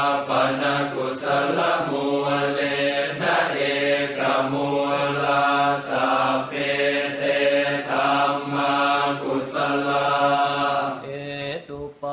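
Thai Buddhist funeral chanting, a continuous recitation held on a nearly unchanging pitch, with the syllables running on in a steady flow. It dips briefly near the end.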